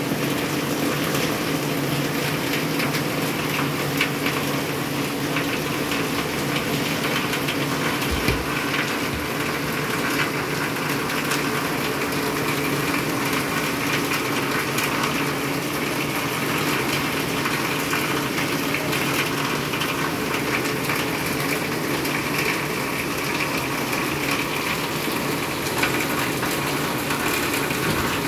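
Steady rain falling on wet pavement and puddles, with a low, steady mechanical hum underneath.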